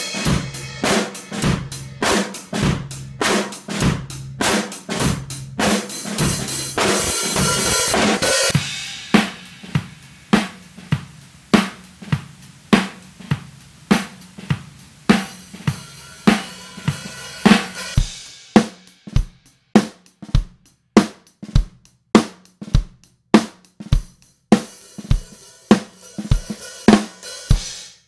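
Acoustic drum kit played in a steady groove: kick, snare and hi-hat with Sabian cymbals, including an AAX crash with holes cut in it. Stretches thick with cymbal crashes alternate with sparer kick-and-snare beats, and the playing stops abruptly at the end.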